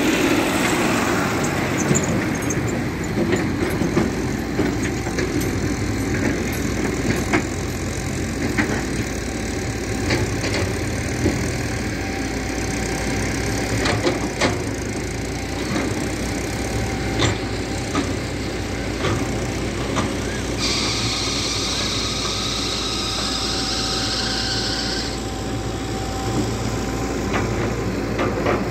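Engines of a Tata 140 excavator and a tractor with a loaded trolley running steadily, with scattered knocks and clatters. A hiss lasts a few seconds about two-thirds of the way through.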